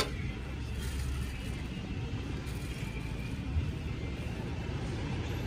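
Steady low rumble of street background noise, with no distinct events.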